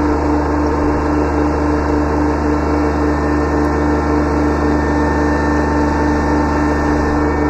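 Kubota B7100 tractor's three-cylinder diesel engine running steadily at constant speed, with a strong steady tone over the engine note.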